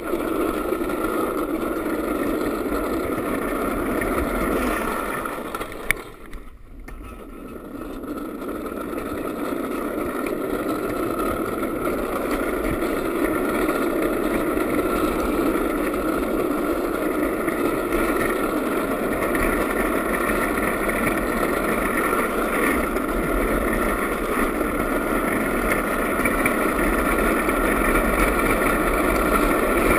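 Homemade wooden gravity go-kart rolling fast down a tarmac lane: a steady rumbling road noise of its wheels on the asphalt. About six seconds in there is a sharp click, the noise drops away briefly, then grows louder again.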